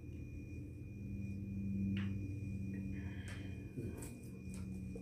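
A person drinking from a plastic water bottle, followed in the second half by a few sharp clicks and crackles of the plastic as the bottle is lowered and handled. A steady low hum runs underneath.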